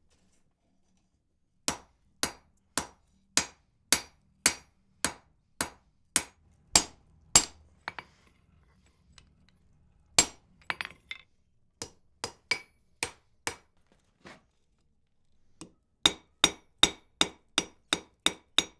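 Blacksmith's hammer striking hot wrought iron on an anvil: a steady run of blows about two a second, a pause broken by a few lighter taps and single blows, then a faster run of about three blows a second near the end, each blow ringing briefly.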